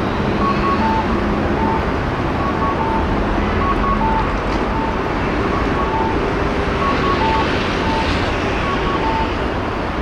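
Busy city street ambience of traffic and crowd noise. Over it, an electronic signal repeats short beeps in two alternating pitches, a quick higher pair and then lower single beeps, about once a second.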